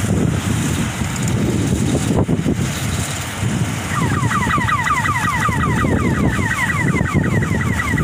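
Sunshine 1100 combine harvester running as it works across the field, a low rumble mixed with wind buffeting the microphone. About halfway through, a quick trill of falling chirps, about eight a second, starts and keeps going to the end.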